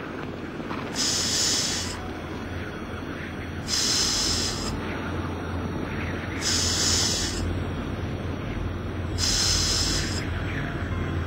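Ambient soundtrack: four bursts of hiss about every two and a half to three seconds, over a steady low droning hum.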